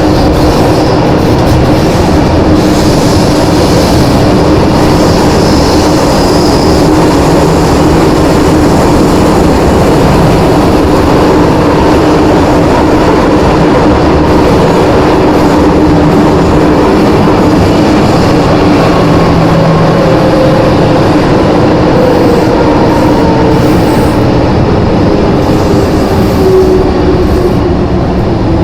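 MTR Island Line M-Train car running, heard from inside the car: dense rail and running noise with the car's strong traction 'ghost howl' whine. In the second half a whine glides steadily down in pitch as the train slows.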